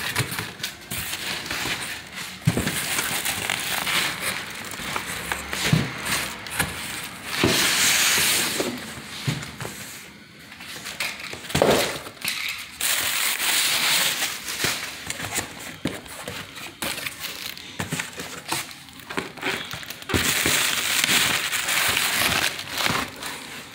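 Plastic wrapping crinkling and rustling, with cardboard box flaps scraping and knocking, as a car headlight is pulled out of its box. It is loudest in stretches around 8 s, 12 s, and from about 20 to 22 s.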